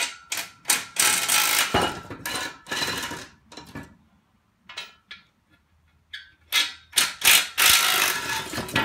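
Steel bash-bar parts clanking and scraping on a concrete floor as the bumper is taken apart, in two busy stretches with a short lull in the middle.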